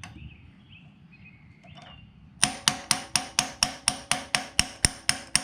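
Hammer tapping on a socket, driving a pilot bearing into the back of the crankshaft. A quick run of ringing metallic taps, about four a second, starts about two seconds in. The taps are seating the bearing, and a change in their tone is the sign that it is fully home.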